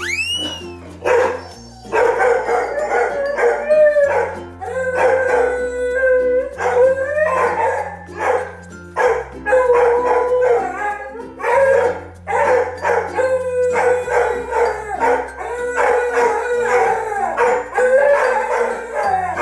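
A beagle howling over and over in excited greeting, long wavering howls one after another, while a mixed-breed dog barks along between them. Background music with a steady bass line plays underneath.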